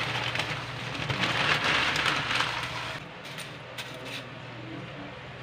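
Pancit canton noodles being mixed into simmering broth in a wok, a loud hiss and crackle that drops off suddenly about three seconds in. A few light clicks of the metal ladle against the pan follow.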